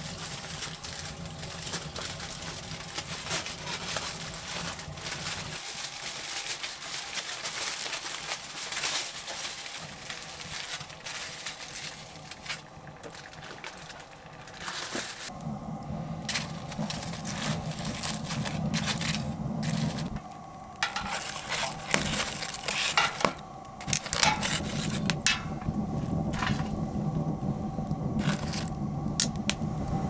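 Aluminium foil crinkling and rustling as sweet potatoes are wrapped. About halfway through, metal tongs clink and knock against a wood stove's firebox as the foil-wrapped potatoes are set on the fire.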